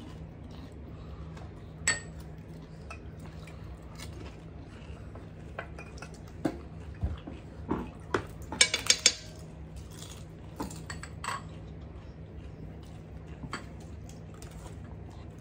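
Metal spoon clinking and scraping against a steel plate and a glass bowl while gol gappa are filled, with scattered sharp clinks and a quick run of several clicks about halfway through.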